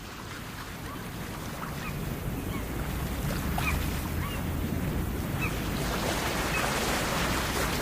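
Recorded ambience of ocean surf fading in as the opening of an Honor MagicOS 9 nature-sound phone tone, growing steadily louder, with short high chirps scattered through it.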